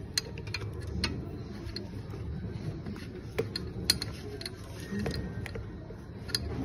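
Light metallic clicks and clinks of bolts and metal parts being handled and fitted on a CS4 cylinder assembly, scattered irregularly, the sharpest a little before four seconds in, over a steady low hum.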